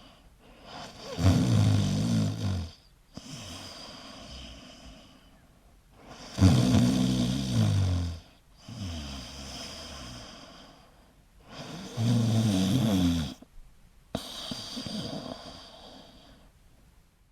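A person snoring: three loud snores about five seconds apart, each followed by a quieter, breathy breath.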